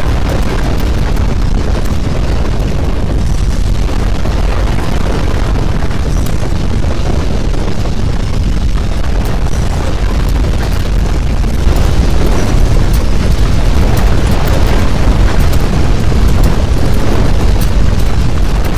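Loud, continuous deep rumble of earthquake shaking, getting louder about twelve seconds in.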